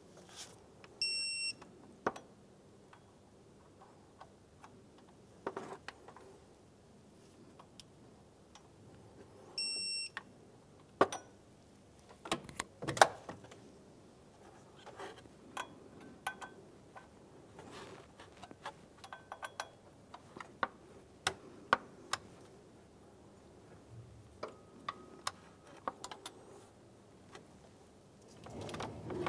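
Digital torque wrench beeping twice, a short high electronic beep about a second in and another about ten seconds in, as each water pump pulley bolt reaches its set torque of 87 inch-pounds. Metal sockets and tools clink and clank on the pulley in between, loudest just after the second beep.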